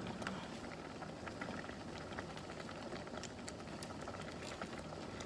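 Pot of mung bean soup simmering on the stove, its surface bubbling with a steady run of small pops and clicks.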